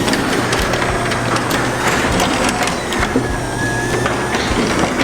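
Side-mounted garage door opener running as the door moves: a steady motor hum with many clicks and rattles.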